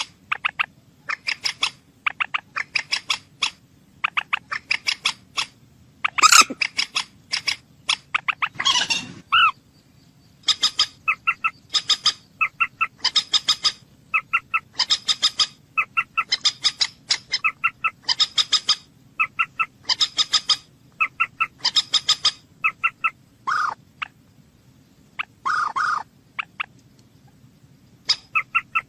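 A bird calling over and over in short rattling bursts, a little more than one a second, each burst a quick run of pulses. A few louder, harsher calls stand out around a quarter of the way in and again near the end.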